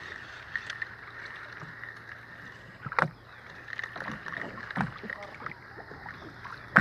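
Steady wind and water noise on an outrigger boat at sea. Over it come a few scattered knocks and clicks from handling a fishing rod and spinning reel; the loudest falls about three seconds in and another at the very end.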